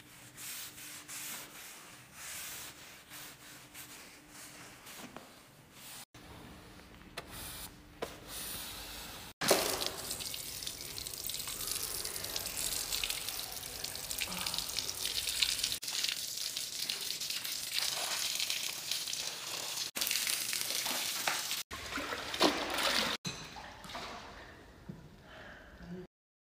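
A hose jet of water spraying hard onto tiled pool surfaces, a loud steady hiss that starts abruptly about nine seconds in and breaks off sharply several times. Before it, quieter scraping and brushing of a long-handled brush scrubbing algae off pool steps.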